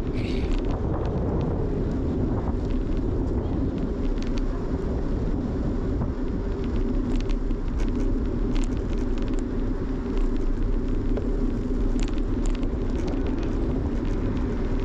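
Steady low rumble of riding a bicycle: wind over the microphone and tyres on the road, with scattered light clicks and rattles.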